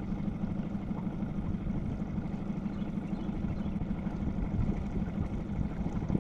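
Boat motor running steadily at trolling speed, a constant hum, with low wind rumble over it.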